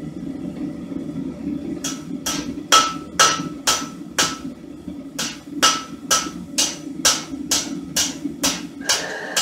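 Blacksmith's hand hammer striking hot spring steel on an anvil at about two blows a second, starting about two seconds in, some blows ringing. A steady low rumble runs underneath.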